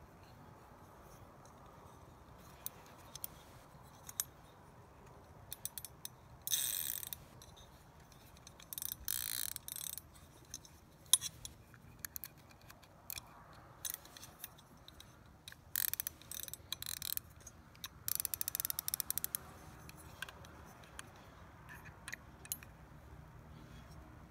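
Orvis Battenkill Large Arbor III fly reel's spool turned by hand, giving four short bursts of rapid ratchet clicking from its drag clicker. Small clicks and knocks of the reel being handled fall between them.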